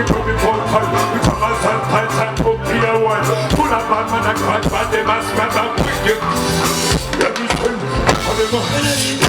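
Band music with drums and a bass line and a voice singing over it, as a band plays through a song at a stage sound check.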